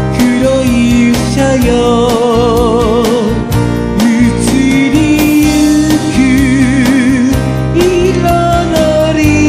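Background music: a song with a sung melody held in long notes with vibrato, over instrumental accompaniment with a steady beat.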